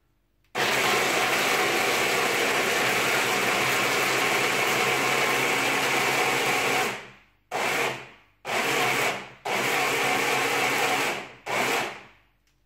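Electric food chopper running, grinding garlic, almonds and parsley in white wine into a paste: one long run of about six seconds, then four short pulses.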